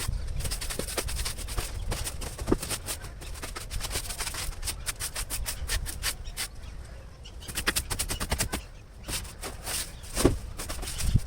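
Scraping and scrubbing strokes from cleaning out a poultry cage, in quick runs of several strokes a second, with a short lull about nine seconds in and a louder knock just after ten seconds.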